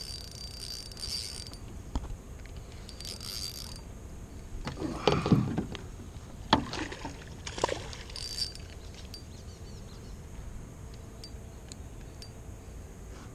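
Spinning reel cranking in two short spells, then a run of knocks and bumps of gear against a small jon boat's hull, the loudest about five seconds in.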